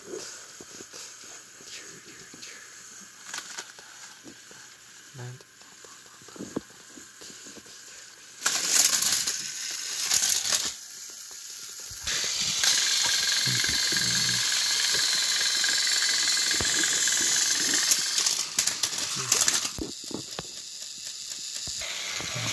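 Motorized toy train engines running against each other on plastic track. Light clicking and rattling at first, then from about halfway a louder, steady whirring hiss of motors and gears.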